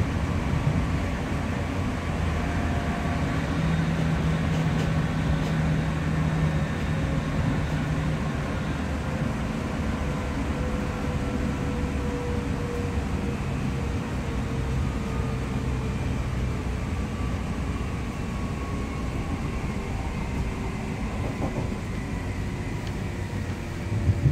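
Class 465/1 Networker electric train heard from inside the passenger saloon. The traction motors whine in several tones that fall slowly in pitch as the train slows from about 64 to 40 mph, over steady wheel-and-rail rumble. A brief low thump comes at the very end.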